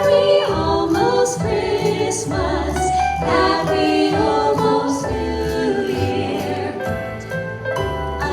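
A vocal group singing a slow Christmas ballad in close harmony, with long held notes over an accompaniment with a steady bass line.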